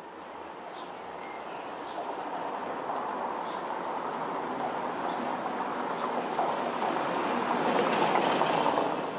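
A car driving up a brick-paved street, its tyre rumble on the bricks and engine noise swelling steadily as it approaches, loudest as it passes close by near the end and then falling away.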